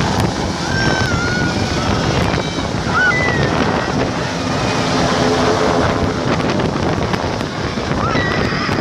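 Coastguard helicopter's rotor and engine noise, loud and steady, as it climbs away after takeoff, with wind buffeting the microphone.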